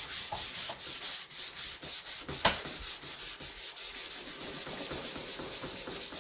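Hand sanding of a car body part: quick, even back-and-forth strokes of sandpaper, about four a second, with one sharp knock about two and a half seconds in.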